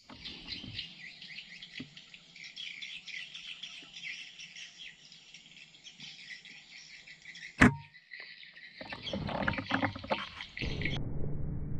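Dense, high chirping of birds and insects, broken by one sharp click a little past halfway. Louder, lower rustling noise takes over in the last few seconds.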